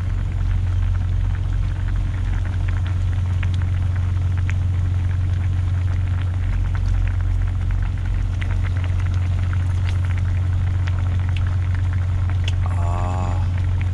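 Pot of kimchi stew bubbling at a full boil, with lots of small irregular pops and ticks. A steady low hum runs underneath, from the idling truck.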